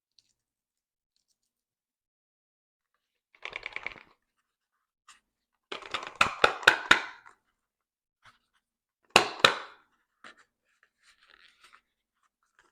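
Unboxing handling noise from plastic packaging and small parts: short bursts of rustling with sharp clicks and taps, the loudest pair of clicks about nine seconds in.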